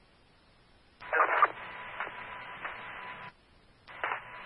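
Fire department two-way radio over a scanner: two open-mic transmissions of static hiss with a faint steady tone and no speech. Each opens with a short loud burst. The first comes about a second in and lasts about two seconds, the second is shorter and comes near the end. These are handsets keyed without talking, as asked for an electronic roll call.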